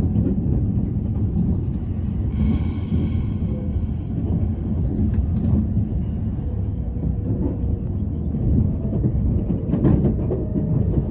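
Cabin noise of an E353-series limited express train running on the rails: a steady low rumble, with a brief high-pitched tone about two seconds in and a few sharp clicks later on.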